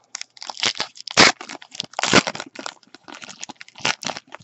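Foil wrapper of a 2016 Bowman Platinum baseball card pack being torn open and crinkled by hand: a run of short crackling tears and rustles, loudest about one and two seconds in.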